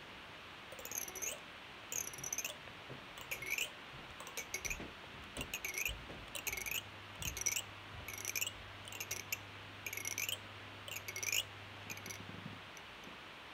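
A high-pitched squeak repeated about every two-thirds of a second, each one dipping and then rising in pitch, with a faint low hum in the second half.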